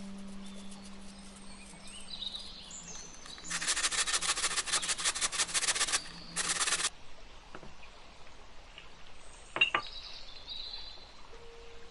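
Raw potato grated on a metal box grater: a fast run of rasping strokes for about two and a half seconds starting a few seconds in, then a short second run. A single sharp click comes near the end, and faint bird chirps sound in the background.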